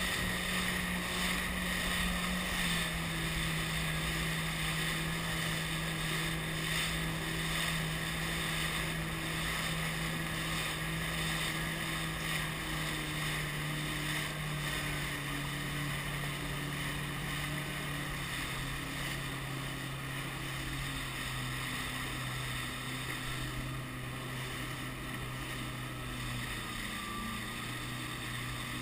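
Jet ski engine running at speed, its note easing lower in several steps as the revs come down, under steady wind and water rushing past.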